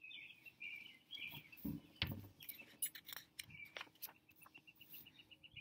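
Small songbird chirping faintly, breaking into a fast, even trill of about ten short notes a second about four seconds in. A few soft knocks and rustles of a picture book being handled.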